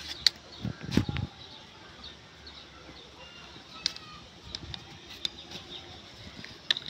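Light scattered clicks and knocks of a hard plastic toy dump truck being handled and turned in the hand, with a louder cluster of bumps about a second in.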